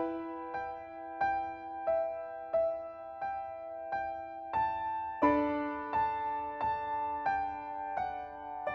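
Background music: slow, soft piano notes struck at an even pace, about one and a half a second, over ringing chords, with the harmony shifting about five seconds in.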